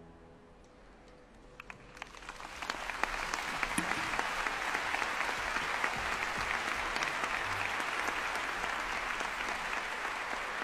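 A hush, then scattered claps begin about a second and a half in and quickly build into steady applause from a large audience.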